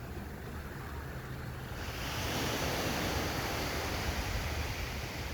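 Ocean surf on a beach: a wave breaks and washes in about two seconds in, turning the low rumble into a louder, steady hiss. Wind buffets the microphone underneath.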